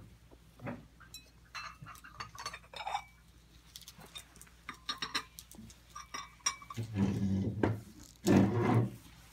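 Dishes and cutlery clinking lightly on a set dining table in scattered small clicks, followed near the end by two louder, low-pitched sounds lasting about a second each.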